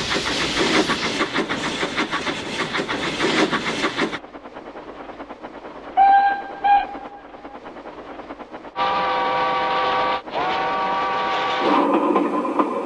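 Toy train set's sound effects: about four seconds of fast, rhythmic steam chuffing, then two short whistle toots, then two long whistle blasts, with a lower tone near the end.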